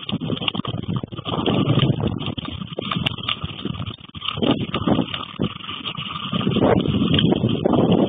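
Strong gusty wind buffeting the microphone during a coastal storm, in irregular surges that rise and fall every second or so, growing heavier near the end.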